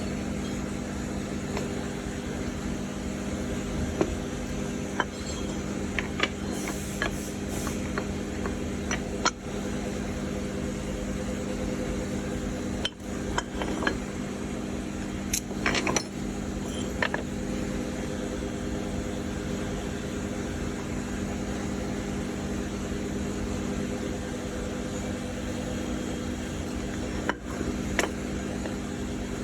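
Steady machine hum in a workshop, with scattered sharp clinks and knocks of metal parts being handled, a few of them close together around the middle.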